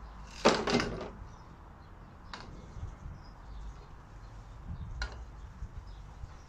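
Metal parts or tools being handled and set down: two loud clanks close together about half a second in, then a few lighter clicks.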